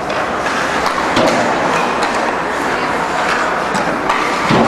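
Ice hockey rink during play: a steady din of the arena with scattered sharp clacks of sticks, puck and skates on the ice and boards, and a louder thump near the end.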